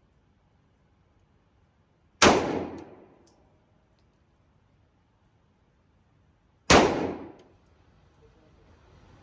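Two Glock pistol shots, about four and a half seconds apart, each a sharp crack with a short ringing echo that fades within about a second.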